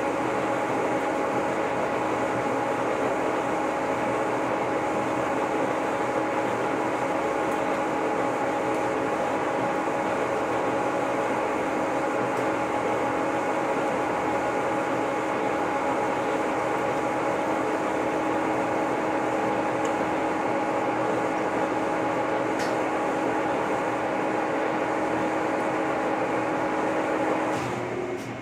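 Lucas model 41 horizontal boring mill running steadily with several steady whining tones, its boring bar cutting a pin bore through the steel quick attach. About a second before the end the sound drops sharply to a quieter hum.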